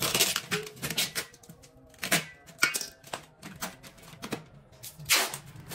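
Clear packing tape being pulled off its roll in short rips and pressed onto a thin aluminium steamer pot, with irregular clicks and knocks as the pot and its lid are handled. The longest rip comes about five seconds in.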